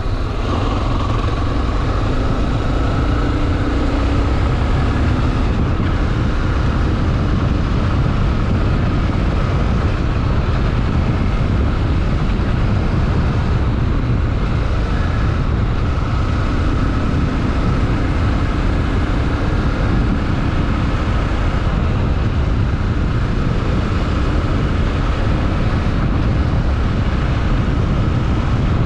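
Honda XRE 300 motorcycle's single-cylinder engine running steadily.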